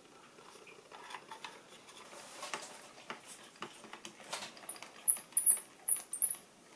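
Small clicks and taps of the plastic body shell of a DJI Phantom 2 Vision+ drone being handled and worked apart, then a quick run of short, high squeaks about two-thirds of the way in.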